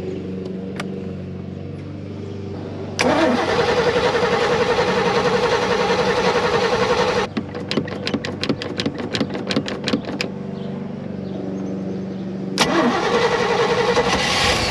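Newly installed 350 cubic-inch Chevy V8 marine engine being cranked by its starter on its first start, over a steady low hum. It cranks for about four seconds, then gives a few seconds of sharp, uneven pops, then cranks again near the end.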